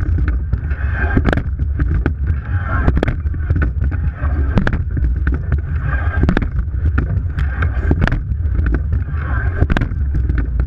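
Racing rowing eight heard from its bow: wind on the microphone and water rushing along the hull, with a sharp knock about every 1.7 seconds as the crew takes each stroke.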